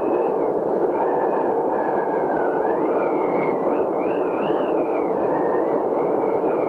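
Howling storm wind: a steady rush with a thin whistling tone above it that wavers up and down.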